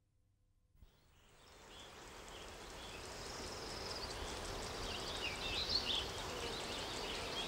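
Outdoor mountain ambience fading in from near silence after about a second: a steady background hiss with small birds chirping, the chirps coming thicker near the end.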